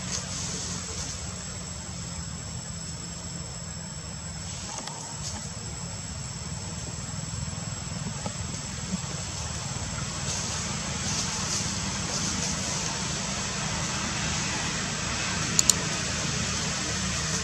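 Steady low rumble of outdoor background noise with a faint high hiss, broken by two quick sharp clicks near the end.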